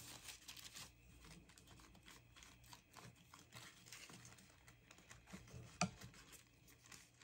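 Faint rustling and crinkling of paper being handled, with small scattered taps and one sharper click almost six seconds in.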